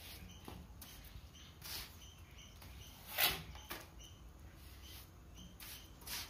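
Steel plastering trowel scraping and pressing cement mortar into gaps along the wall's corner edge: a few short scrapes, the loudest about three seconds in.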